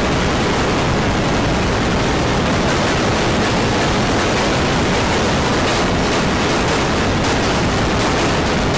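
Loud, steady static-like noise spread evenly from deep lows to high hiss, with no tone, pitch or rhythm: harsh digitally distorted audio from an effects-edited logo video.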